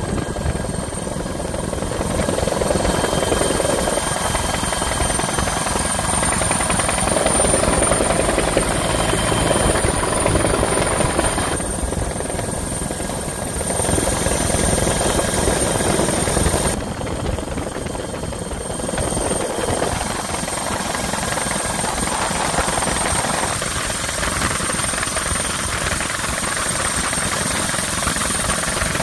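Helicopter in flight, heard on board: a steady rotor and engine noise with a thin high whine over it.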